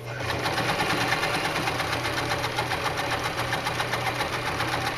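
Janome HD1000 sewing machine running at a steady speed, the needle stitching in a fast, even rhythm; it starts up at the very beginning.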